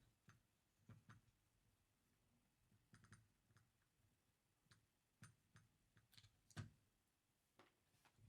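Faint, irregular clicks and small taps of the metal and plastic parts of a Tokyo Marui V10 Ultra Compact airsoft pistol and tools being handled during work on its hammer assembly, with a louder knock about six and a half seconds in.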